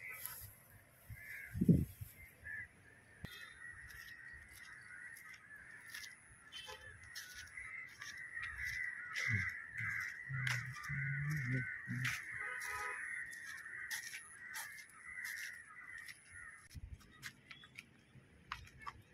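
Birds calling: a steady, busy chorus of calls, with many short sharp calls standing out above it.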